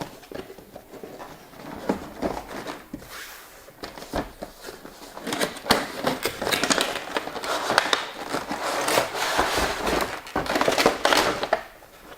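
Rustling, crackling and clicking of cardboard and plastic packaging as a board-game box is opened and its contents handled, sparse at first and busier and louder from about halfway.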